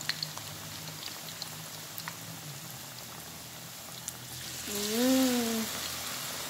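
Battered banana fritters deep-frying in hot oil in a wok: a steady sizzle with small crackles, swelling into a loud hiss about five seconds in as more battered banana goes into the oil. A brief voice-like call sounds over the swell.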